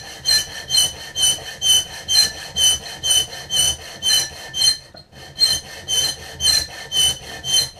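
A small hand file cutting slots into a hardened bandsaw-steel knife blade, in steady back-and-forth strokes about two a second with a ringing metallic rasp. There is a brief pause about five seconds in. The steel is very hard and files slowly.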